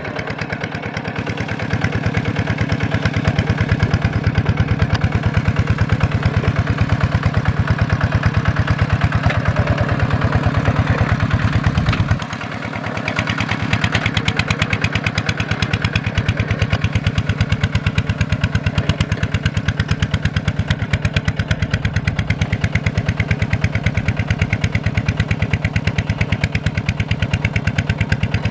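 Kubota single-cylinder diesel engine running with a steady rapid beat of firing pulses. It picks up about two seconds in, dips briefly about twelve seconds in, then runs on steadily again.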